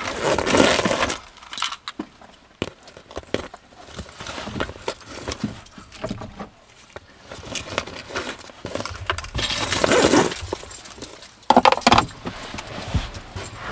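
Rustling and metal clinks of a child's car-seat harness being handled and buckled, with many scattered clicks and a few louder rustles.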